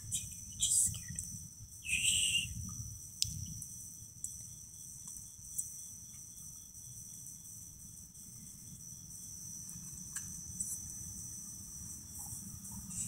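Crickets trilling steadily in the night, with a fainter evenly spaced chirping for several seconds in the middle. A few brief soft sounds in the first three seconds.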